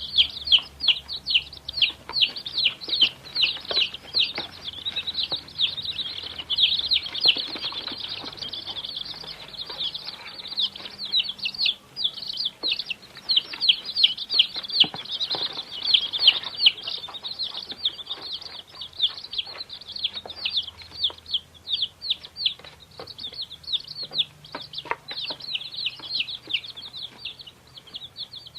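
A group of baby chickens peeping: constant overlapping high, short cheeps, several per second, with light scuffling and taps underneath.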